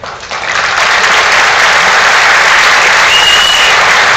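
Audience applauding, swelling in over the first second and then holding steady. A short high steady tone sounds briefly about three seconds in.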